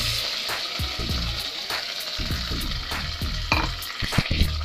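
Chopped shallots and green chilies sizzling in hot oil in a pan, a steady frying hiss, with a few sharp clicks near the end.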